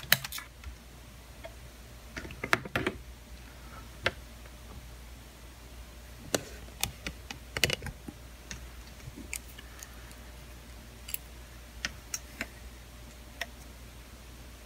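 Sparse, irregular light clicks and taps of a digital multimeter and its probes being handled on a workbench, set up to check a freshly soldered laptop logic board for shorts, over a faint steady low hum.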